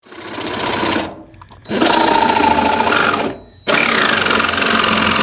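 A power tool buzzing in three runs with two short pauses between.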